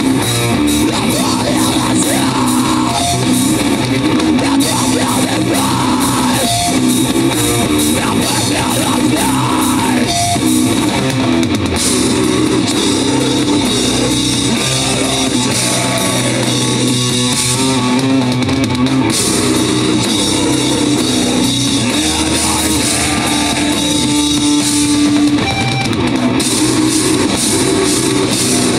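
Live rock band playing loud, with distorted guitars and a full drum kit driving a steady beat.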